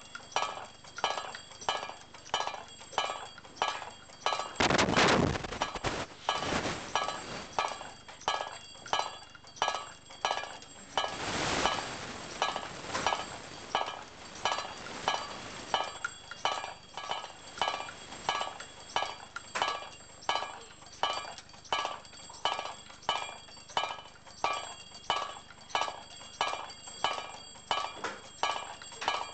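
Small brass bells on a hand-built kinetic sculpture being struck over and over by its moving wire mechanism, ringing at a steady rhythm of about one and a half strikes a second. Two louder bursts of noise come about five and eleven seconds in.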